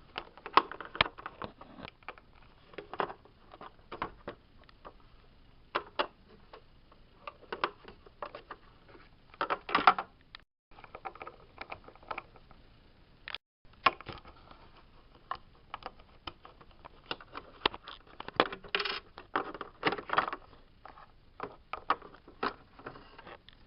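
Irregular light clicks and taps of small plastic toy figurines being handled and set down on a hard surface.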